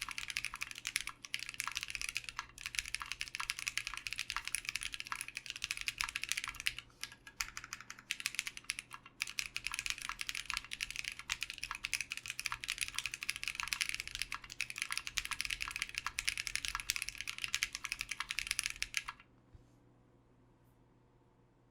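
Fast, continuous typing on a Mekanisk Klippe S HHKB-layout mechanical keyboard with lubed 62g Pacos switches, a polycarbonate plate and ePBT doubleshot keycaps. There are a couple of short pauses, and the typing stops a couple of seconds before the end.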